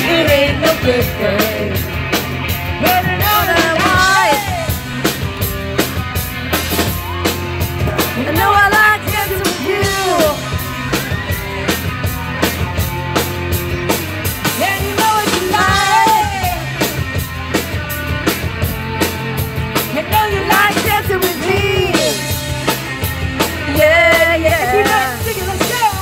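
Live rock band playing through a PA: a woman sings lead over electric guitars and a drum kit keeping a steady beat.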